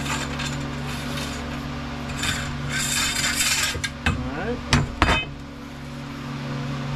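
A pole saw's metal drive shaft sliding and scraping down inside its metal shaft tube, metal rubbing on metal, followed by a few sharp knocks about four to five seconds in as the tube is handled and set down on the bench.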